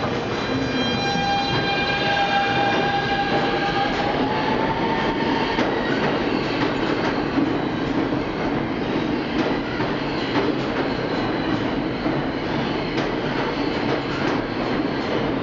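New York subway train, a Kawasaki R160B with Siemens AC propulsion, pulling out of an underground station. For the first few seconds the traction motors give a whine of several steady tones that rises slightly. It then gives way to the steady rumble of the passing cars and the clicking of wheels over rail joints as the train picks up speed.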